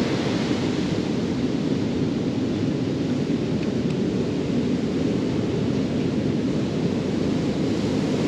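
Steady noise of wind and surf on a shoreline, with wind rumbling across the microphone.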